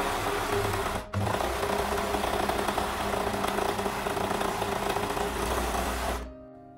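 Sweety overlock machine (serger) running at speed, stitching and trimming the raw edge of a linen shoulder seam. It cuts out for an instant about a second in and stops about six seconds in, leaving soft piano music.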